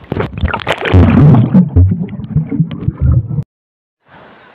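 Sea water splashing and gurgling right against a phone's microphone, with loud low thumps and bubbling. Near the end the sound cuts out completely for about half a second.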